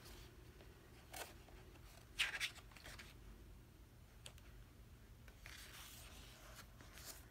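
Paper rustling as hands handle a photobook's glossy pages, with a short sharper rustle about two seconds in and a softer, longer rustle of a page being turned near the end.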